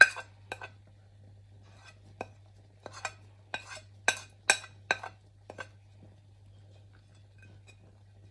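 Metal spoon clinking and scraping on a ceramic plate as powdered spices are pushed off it into a pot: about a dozen sharp, ringing clinks over the first six seconds, then quiet over a faint low hum.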